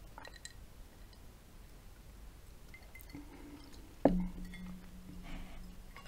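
A glass mug set down on a wooden tabletop about four seconds in: a single sharp knock followed by a low ring that dies away over about a second and a half. A few faint clicks come before it, near the start.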